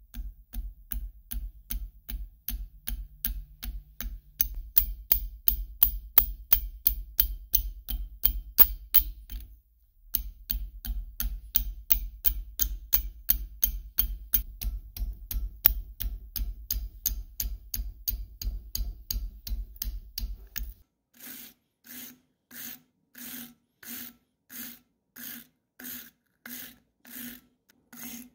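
A hand file rasping on the aluminium dynamo housing in quick, even strokes, about three or four a second, with a brief break near ten seconds. From about two-thirds of the way in, the strokes turn slower and more spaced, about one and a half a second.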